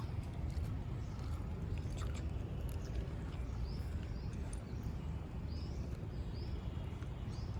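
Steady low outdoor rumble with a few short, high chirps scattered through it.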